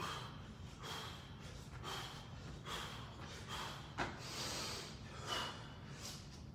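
A man breathing hard from exertion during push-ups and mountain climbers: sharp, noisy breaths about once a second.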